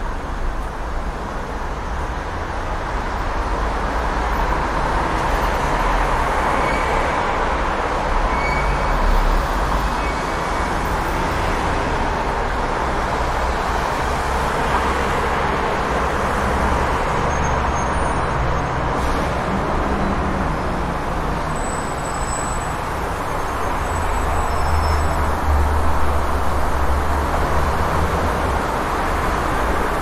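Busy city street traffic: a steady wash of passing vehicles and engine rumble, the low rumble swelling for a few seconds near the end.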